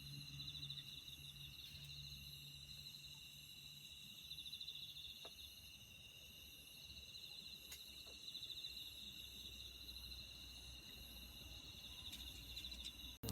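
A faint, steady chorus of insects trilling high-pitched, with a couple of faint clicks.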